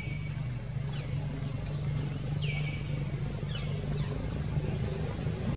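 Several short, high-pitched animal calls, each falling in pitch, spaced about a second apart, over a low steady hum.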